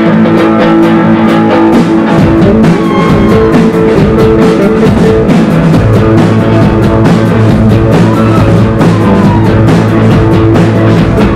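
Loud live rock band jam: sustained, droning electric guitar tones worked through an effects pedalboard, changing pitch about two and six seconds in, over continuous crashing drum kit and cymbals.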